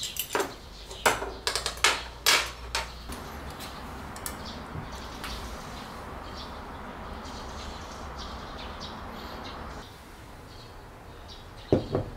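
Metal chopsticks and spoon clinking in a quick run of sharp clicks as they are picked up, then a steady soft hiss while food is lifted from the pot, and near the end a ceramic rice bowl knocking down on a wooden table.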